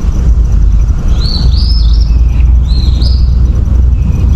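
A songbird calling in short chirpy phrases, two bursts about a second apart, over a loud steady low rumble.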